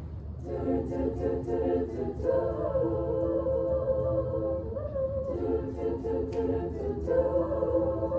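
A small school choir of girls' voices singing unaccompanied in several parts, coming in about half a second in and holding long chords that change every two or three seconds.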